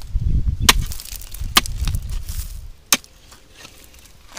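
Three sharp chopping strikes of a digging tool into the ground, each about a second apart, over a low rumble that dies away about halfway through.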